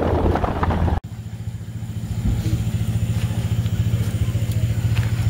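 A 4x4 pickup driving on a dirt road for about a second, then after a sudden cut a small engine running steadily with a low, even pulse.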